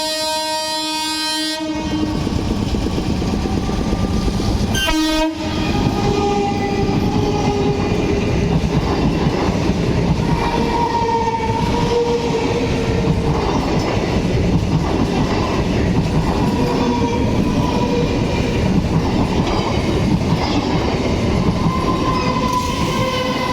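EMU local train's horn blaring for about two seconds, then the train running past with a steady rumble and clatter of wheels on the rails. A short second horn blast comes about five seconds in.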